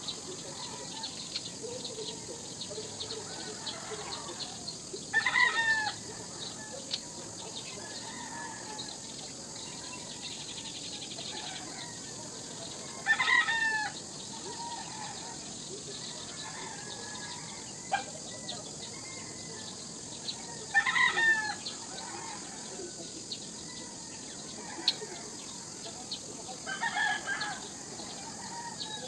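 A rooster crowing four times, about every eight seconds, over a steady high-pitched hiss.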